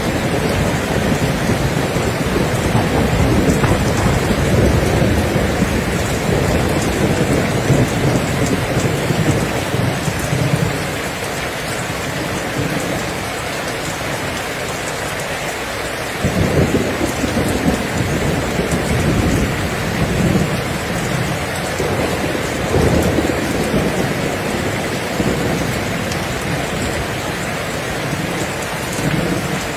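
Heavy rain falling steadily, with low rolling rumbles that swell during the first ten seconds and again from about halfway through.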